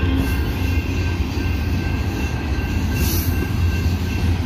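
Double-stack intermodal freight cars rolling slowly through a grade crossing: a steady low rumble with a faint steady high-pitched tone over it.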